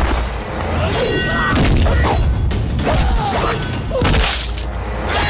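Film fight-scene soundtrack: a dramatic background score under punch sound effects, with repeated hits, thuds and whooshes.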